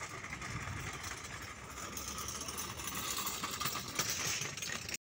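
Steady outdoor traffic noise from cars in a car park, a low even hum of engines and tyres; it cuts off suddenly at the very end.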